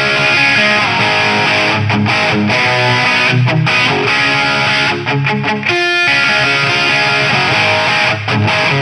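Distorted electric guitar played through a DIY Mojotone British 800 kit tube amp, a JCM800-style head, with the preamp gain all the way up in normal mode. It is playing heavy low chords and riffs, with a short break about six seconds in.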